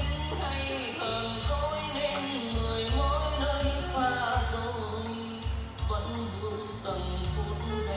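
A song with singing over bass and drums, played back through a stereo amplifier and speakers.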